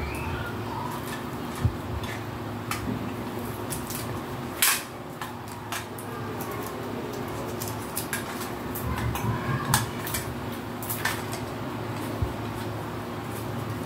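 Hands handling small Christmas decorations, making irregular sharp clicks and light rattles, the loudest a few seconds in and again near the middle, over a steady low hum.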